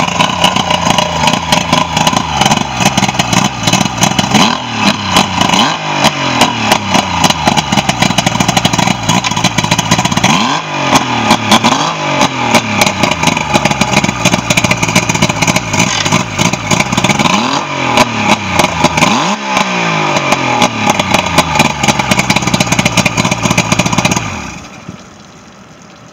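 2001 Mercury 90 HP carbureted two-stroke outboard running on a garden-hose water supply during a test run after a carburetor rebuild, revved up and back down several times. The engine shuts off about 24 seconds in.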